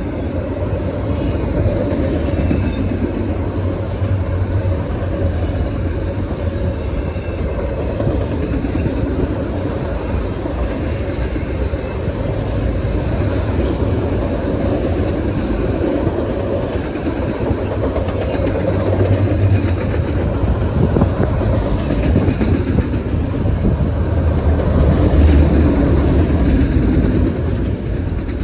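A train rolling past, its wagons giving a steady heavy rumble with a clatter of wheels over the rail joints that swells and eases a few times.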